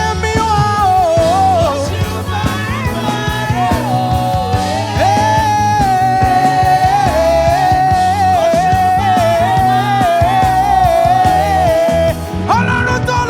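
Gospel praise band playing with no words: a single lead melody line holds long notes and slides between pitches, over bass and drums.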